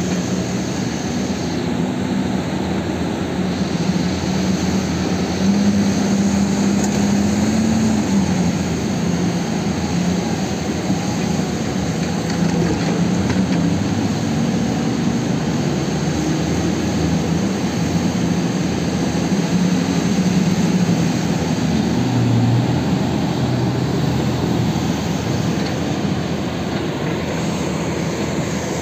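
Heavy diesel engines of a Hitachi EX2500 mining excavator and a Komatsu HD785 haul truck running as the shovel loads the truck: a steady deep drone whose pitch rises and falls a little as the engines work.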